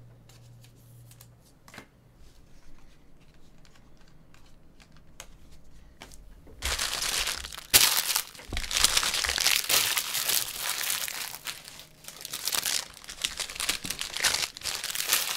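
Crinkly plastic wrapping being handled, crumpled and torn open, loud and continuous from about six and a half seconds in, with a sharp snap a second later; before that only faint scattered handling ticks.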